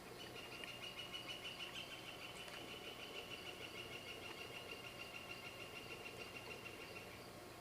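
Faint, steady high-pitched insect trill, made of rapid even pulses, held for about seven seconds and stopping shortly before the end.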